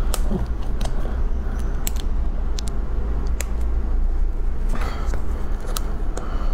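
Plastic food container handled while its sealed lid is picked at to open it: scattered sharp plastic clicks and crackles over a steady low hum.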